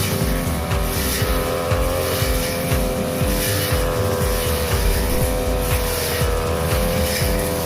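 Brush cutter engine running steadily at high speed while its 45 cm blade cuts grass.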